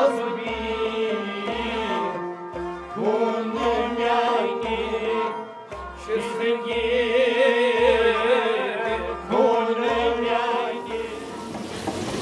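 Background music: a wavering held melody over a steady low drum beat.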